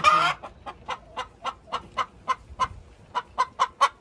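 A hen's egg song: a loud drawn-out squawk, then a steady run of short clucks about four a second that quicken toward the end and break into another loud squawk. The owner takes it as the hen announcing an egg on the way.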